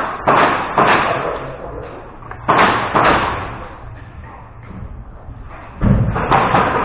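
Sharp bangs and knocks echoing in a large room: a few in quick succession at the start, one more at about two and a half seconds, and a rapid run near the end.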